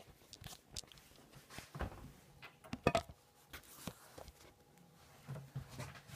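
Camera handling noise: scattered clicks, knocks and rustles as the camera is handled and set in place, with a person moving about close to it. The loudest knock comes about three seconds in.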